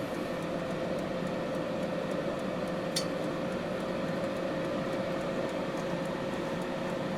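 Fagor countertop halogen oven running, its convection fan whirring steadily with a steady hum through it. The fan runs normally despite its loosened, rust-seized blade nut. A faint click comes about three seconds in.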